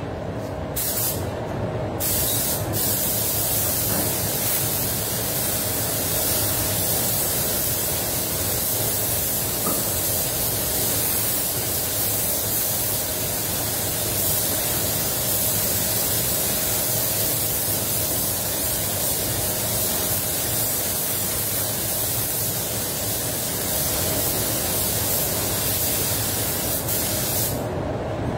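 Air spray gun spraying fast-dry clear coat at about 1.6–1.7 bar with the gun fully open: a steady loud hiss of atomising air. It cuts out briefly a few times in the first three seconds and stops near the end.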